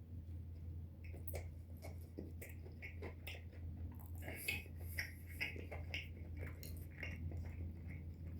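A person chewing a mouthful of fried chicken sandwich, with irregular small wet clicks and smacks from the mouth, busiest about halfway through. A steady low hum runs underneath.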